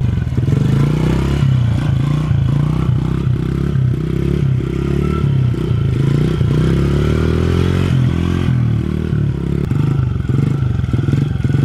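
Honda CRF70 dirt bike's small single-cylinder four-stroke engine running under throttle as the bike is ridden, its pitch rising for about two seconds past the middle and then dropping suddenly.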